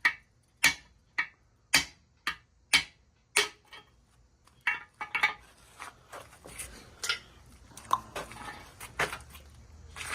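Hammer blows working a stuck plug out of a Pontiac 400 cast-iron engine block. Sharp metallic strikes come about two a second for roughly the first three and a half seconds. Lighter, irregular knocks and scraping follow as the plug refuses to break free.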